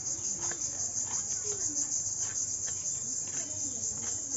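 Steady, high-pitched chorus of insects, pulsing rapidly without a break. Under it come a few soft knocks from a cleaver chopping hilsa fish, and faint distant voices.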